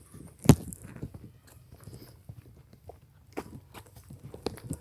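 Footsteps crunching up a trail, a few uneven steps, with one louder thump about half a second in.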